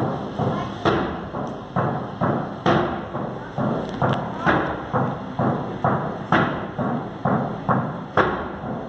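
Hand drum beaten in a steady slow rhythm, about two strikes a second, with every fourth strike louder.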